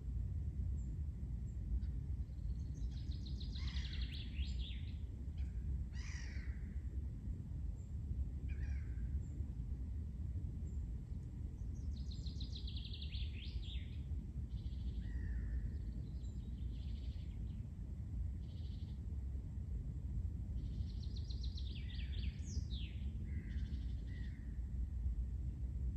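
Forest birdsong: a songbird's trilled, high-pitched song phrase comes three times, about every nine seconds, with a few short calls between, over a steady low rumble.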